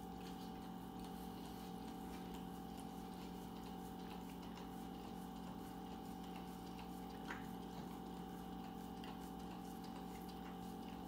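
Pit bull-type dog licking ice cream out of a paper carton on the floor: faint, irregular wet clicks and smacks of her tongue, one a little sharper about seven seconds in, over a steady low hum.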